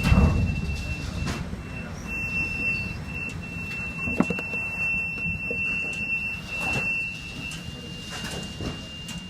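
Storm noise aboard a ship: wind and heavy seas buffeting the vessel in a low, rumbling roar that surges loudest right at the start, with a sharp knock about four seconds in. A thin, steady high whistle runs through most of it.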